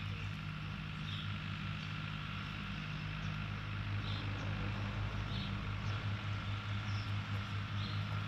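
A steady low machine hum, with short faint high chirps now and then.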